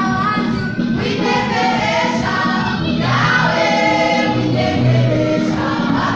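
Church praise group singing a gospel song together as a choir.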